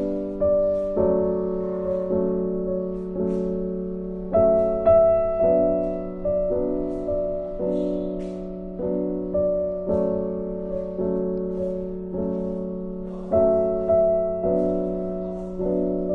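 Background music: piano playing slow, held chords over a steady low note.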